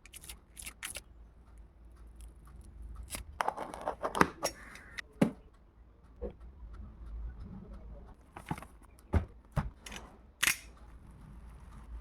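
Product packaging being handled and opened by hand: scattered sharp clicks and knocks, with a stretch of tearing and rustling from about three to five seconds in.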